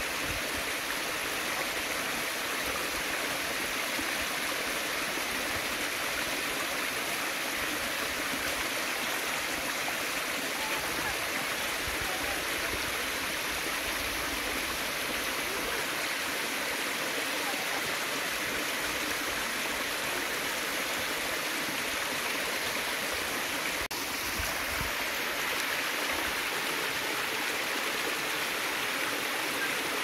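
Small stream of water cascading down a mossy rock channel, a steady running splash.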